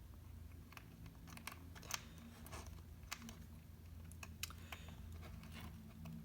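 Faint, irregular small clicks and taps of an iPhone SE's parts and small tools being handled during reassembly, over a low steady hum.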